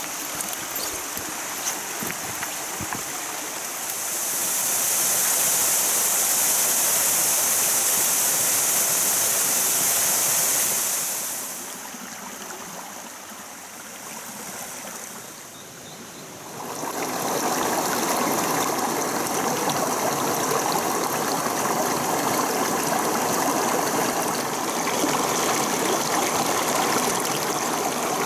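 Mountain stream water running over rocks, with a few footsteps on stones in the first seconds. The rush changes several times: a loud, high hiss for several seconds, a quieter stretch, then a fuller, steady rush for the rest.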